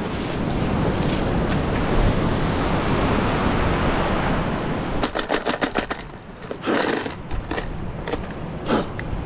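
A rogue wave breaking and surging over the shore: a loud, steady rush of whitewater for about five seconds. It gives way suddenly to a quick run of sharp knocks and clatters, then scattered rustling and bumps.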